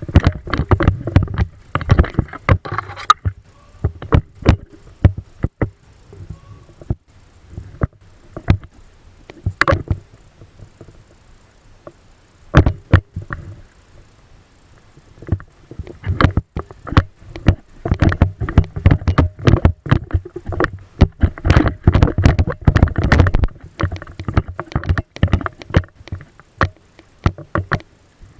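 Close-up rustling and knocking of gear and movement, with many sharp irregular clicks and knocks. They come densest at the start and again in a long stretch in the second half, where a low rumble runs under them.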